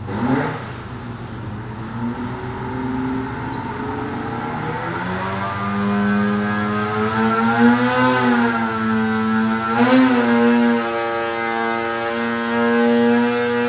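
Arctic Cat Alpha snowmobile's two-stroke engine, fitted with a Bikeman 900 big-bore kit, making a cold dyno pull under load. Its revs climb steadily from about four seconds in, waver twice, then hold high near the end.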